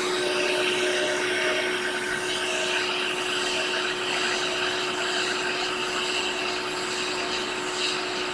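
Hot air rework station blowing steadily, a constant rushing hiss with a steady hum, as it heats a phone charging port to melt its solder for removal.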